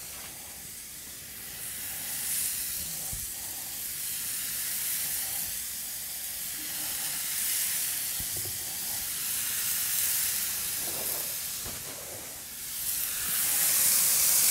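Raw pork tenderloin rolls on wooden skewers sizzling on a preheated cast-iron griddle plate. The sizzle swells each time another skewer is laid down, loudest near the end, with a few faint knocks as skewers touch the plate.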